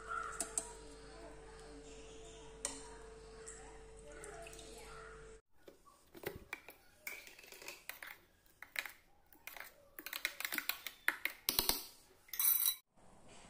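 Clinks and knocks of metal tongs and a steel mixer-grinder jar being handled: sparse over a faint steady hum at first, then a dense run of sharp clatter in the second half.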